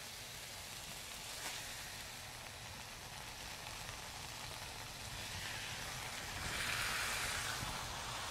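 Chicken breast topped with melted cheese sizzling steadily in a hot pan, the sizzle swelling louder for about a second near the end.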